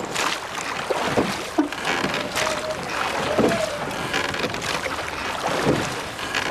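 Wooden rowing skiff under way: oars splash and knock in their rowlocks, a stroke about every second, over a steady rush of water and wind noise.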